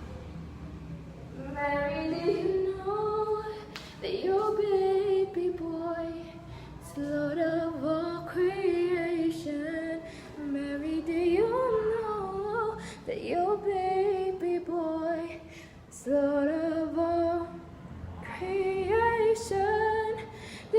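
A young woman singing solo in a series of held, sliding phrases with short breaths between them. She is singing while she has a slight cough.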